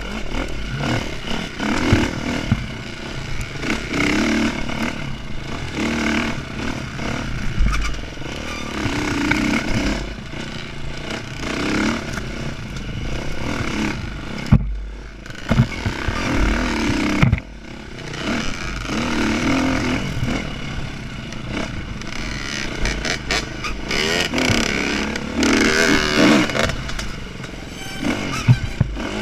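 Dirt bike engine revving up and down as it is ridden hard on a rough trail, with knocks and rattles from the bike. The throttle closes briefly about halfway through.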